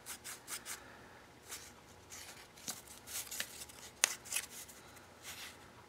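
Faint handling noises: light rustles and soft taps of objects being moved about, with one sharper click about four seconds in.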